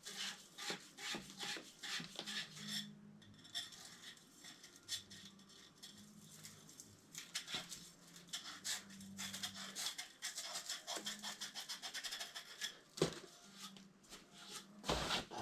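Irregular rubbing, scraping and small clicks of hands working with tools and copper pipe, with a sharper knock near the end.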